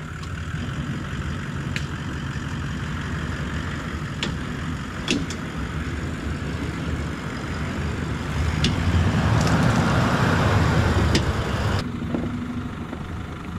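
Off-road four-wheel-drive engine running at low revs as a Toyota LandCruiser 79 Series crawls down a rutted washout. It grows louder for a few seconds as it comes closer, then drops suddenly near the end. A few sharp clicks are scattered through the run.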